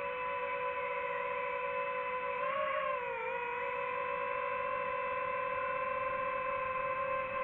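DJI FPV drone's motors and propellers whining steadily in flight; the pitch briefly rises, then dips, a little under halfway through.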